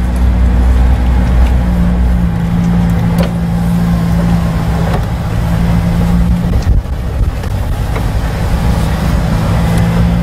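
Engine of a four-wheel-drive vehicle heard from inside the cabin, running steadily at low speed as it crawls over a rutted, stony, unmaintained forest track. A few sharp knocks and rattles come from the bumps.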